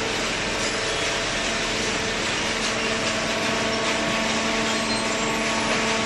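Hydraulic cardboard baler and its infeed conveyor running: a steady machine noise with an even, constant hum from the motor and pump.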